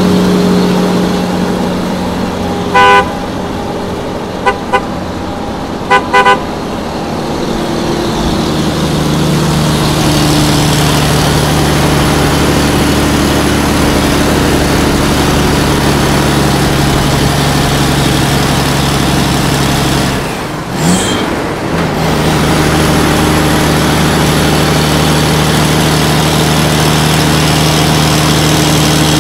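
A heavy truck engine running steadily, with horn toots: one blast about three seconds in, then two quick pairs of short toots soon after. The engine cuts out briefly about two-thirds of the way through, then runs on.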